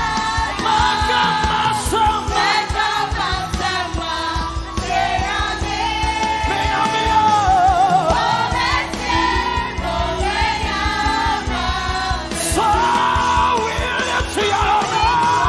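Live gospel praise music: a lead singer over a band with a steady, driving drum beat, with shouts from the crowd.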